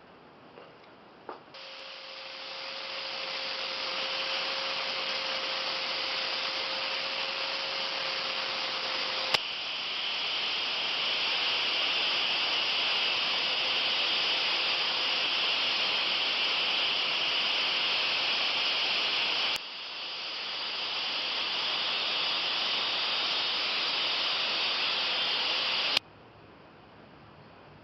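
Steady sanding hiss on a restored hammer, running in a few joined stretches with abrupt jumps in level at the joins, then cutting off suddenly near the end.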